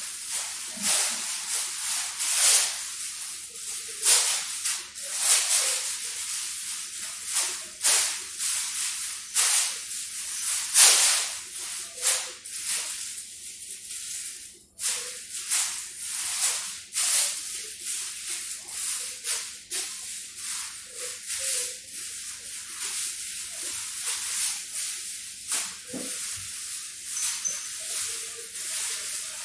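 Irregular crinkly rustling and scratching: a cat moving against a plastic tablecloth and brushing the phone, short scrapes a fraction of a second each, with a brief lull about halfway through.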